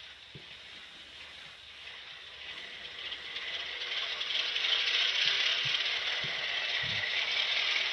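HO scale FP7 diesel locomotive models' DCC sound decoders playing the diesel engine sound through their small speakers, coming back on and rising in loudness over a few seconds, then running steadily.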